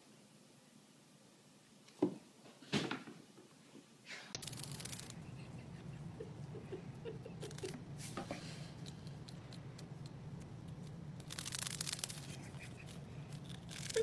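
Two sharp knocks close together, then a kitten nibbling a cheese puff: soft crunching and crackling over a steady low hum.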